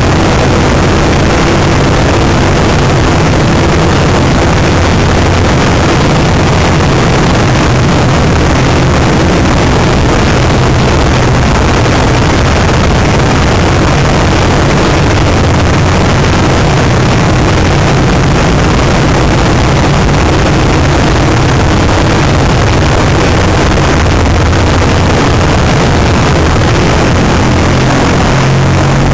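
Motorcycle ridden at a steady pace: the engine drones evenly under a constant loud rushing noise.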